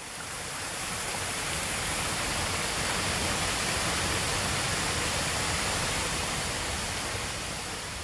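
Small mountain stream cascading over rocks, a steady rushing of water that swells up at the start and fades away near the end.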